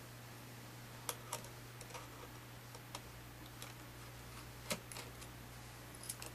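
Faint, irregular small clicks and ticks of a precision Phillips screwdriver turning the tiny screws that hold a side bracket on a laptop LCD panel, with metal-on-metal contact. The loudest tick comes a little under five seconds in, over a steady low hum.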